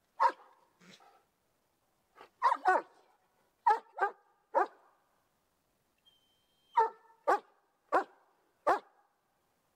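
German Shepherd barking, about ten barks in singles and quick pairs, with a pause of about two seconds in the middle.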